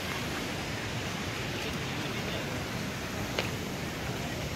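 Steady rushing noise, with one short knock about three and a half seconds in.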